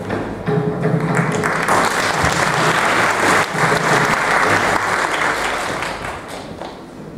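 Audience applauding. The clapping swells after about a second and fades away near the end.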